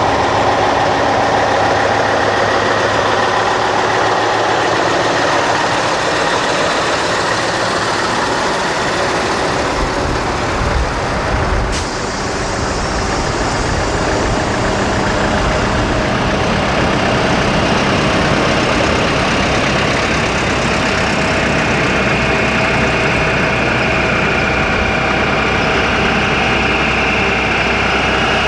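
Engines of a slow line of heavy trucks and vehicles running as they pass close by, a steady dense rumble; a single sharp click about twelve seconds in.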